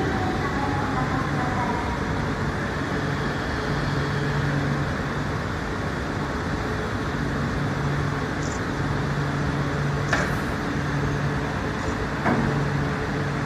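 E4 series Shinkansen trains standing at the platform during uncoupling: a steady hum and rumble from the trains' running equipment, with a low tone that comes and goes. There are a few short clicks about ten and twelve seconds in.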